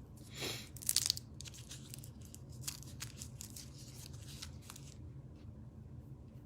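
Trading card hanger box packaging being torn open: a swish, a loud sharp rip about a second in, then crinkling and rustling of the wrapper that dies down after about five seconds.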